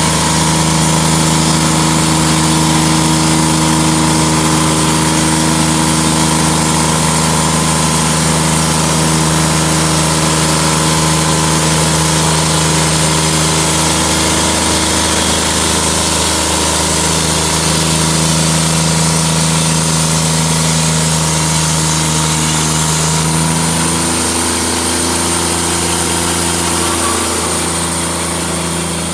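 Portable band sawmill's engine running steadily while the band blade saws through a crooked log; the engine note shifts slightly about 23 seconds in.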